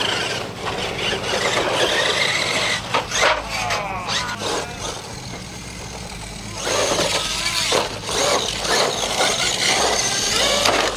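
RC monster truck's electric motor whining, rising and falling in pitch as it is throttled, with a few knocks from the truck landing and bouncing. The sound drops back for a moment about halfway through, then picks up again.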